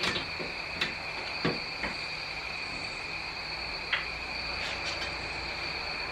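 A few light knocks and clicks as a metal Harley-Davidson luggage rack is slipped into place on a motorcycle. Under them runs a continuous, steady, high-pitched tone.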